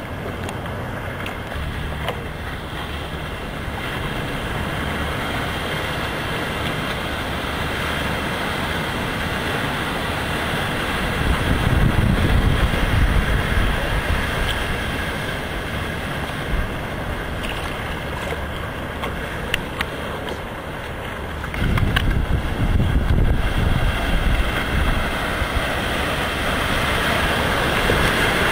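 Boat motor running steadily on the sea, with wind gusting on the microphone in two longer stretches and waves washing.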